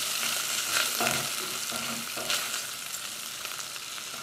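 Bacon and linguiça sausage sizzling as they fry in a stainless steel pot, with a silicone spatula stirring and scraping through them now and then.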